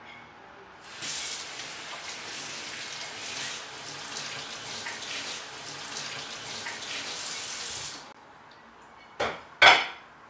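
Kitchen tap running steadily into a sink for about seven seconds, then shut off abruptly. Two short knocks follow about a second later, the second one louder.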